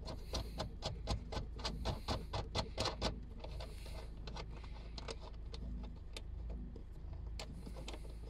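A rear light unit's mounting nut being turned off its threaded stud by hand: quick irregular metal clicks, fast for the first three seconds and then sparser, with a few short rustles against the felt boot lining.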